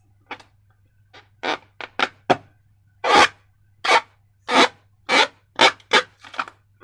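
Slime being squeezed and worked by hand: about a dozen short squishes at irregular intervals, coming quicker toward the end, over a faint steady hum.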